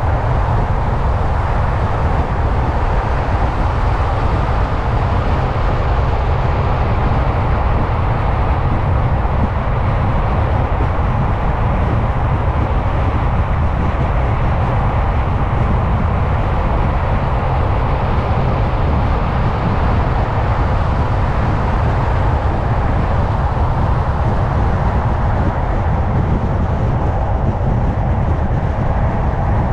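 A car driving steadily at road speed: constant tyre and road noise over a low engine and road rumble.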